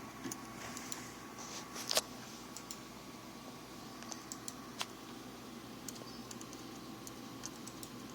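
Scattered small clicks and taps of a small Phillips screwdriver and tiny screws on the plastic power-button board, as the screws are set and driven in; the sharpest click comes about two seconds in.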